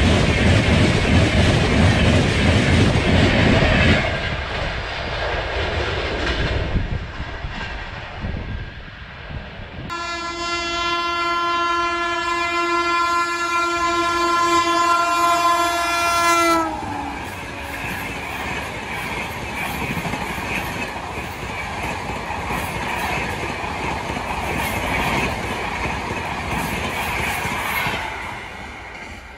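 Indian Railways LHB passenger coaches running fast and close past the track, a loud rumble with wheel and rail clatter. A few seconds later an electric locomotive's air horn sounds one long steady note for about six seconds, dropping slightly in pitch as it cuts off. Then another LHB train passes with a steady rumble and clickety-clack that fades near the end.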